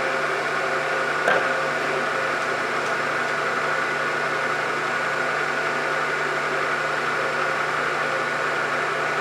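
Belt-driven milling machine running steadily, a two-flute end mill cutting into steel, with a steady hum and a higher tone; a single short click about a second in.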